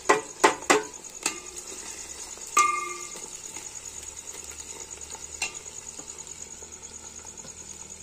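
Sliced onions going into hot oil in an aluminium pot: a few sharp metal knocks as the steel plate is tapped against the pot, a ringing metallic clang about two and a half seconds in, then a low frying sizzle and the scrape of a steel ladle stirring the onions, over a steady high-pitched whine.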